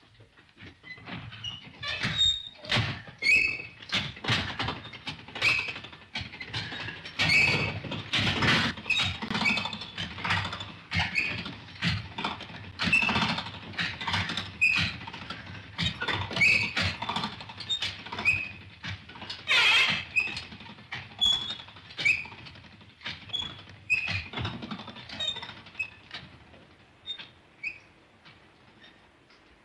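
Heavy downpour: large raindrops splashing and plinking, with irregular sharp hits several a second, some with a short ringing ping. It dies down near the end.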